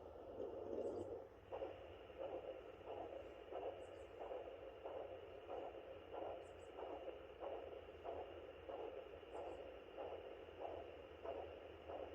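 Home fetal Doppler picking up the mother's own heartbeat, at about 84 beats a minute: a faint, muffled whooshing pulse repeating about twice a second. A louder rushing noise fills the first second or so.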